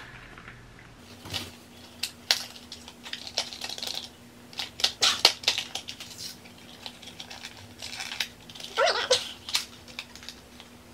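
Cosmetics packaging being handled and opened by hand: an irregular run of sharp clicks, crinkles and rustles, with a faint steady hum underneath from about a second in.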